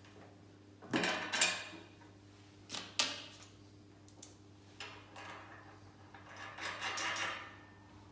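Steel parts and hand tools clinking and scraping in a few short bouts, with a longer scrape near the end, as a tube bender's side plate is bolted back on. A faint steady hum runs underneath.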